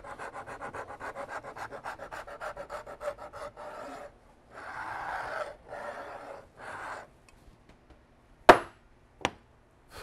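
Hand rasp (a Nicholson No. 50) cutting wood along a reproduction rifle stock, taking off wood to fit the action. Quick, short strokes at about six a second for several seconds, then three slower, longer strokes. After these come two sharp knocks, the loudest sounds here.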